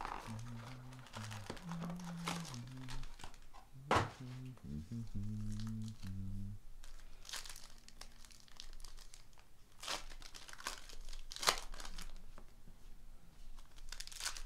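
Foil trading-card packs and their cardboard box being handled and torn open: crinkling wrappers and tearing, in a series of sharp rustles, the loudest about four seconds in and around ten to twelve seconds in.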